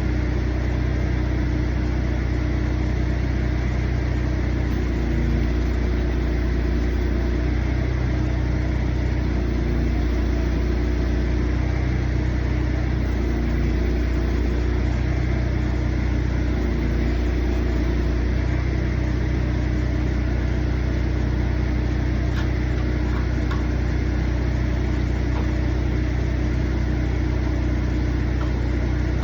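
An engine idling steadily at an even, unchanging speed.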